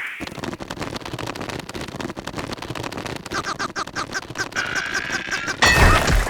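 Cartoon sound effects: a rapid, continuous rattling clatter, joined about halfway by short squeaky cries repeating roughly three times a second, and a loud burst near the end.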